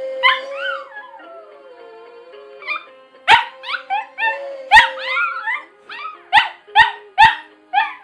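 Cavalier King Charles–Maltese cross dog howling along to a mobile phone ringtone song. It gives one long wavering howl at the start, then from about three seconds in a run of short yipping howls, roughly three a second, over the ringtone's music.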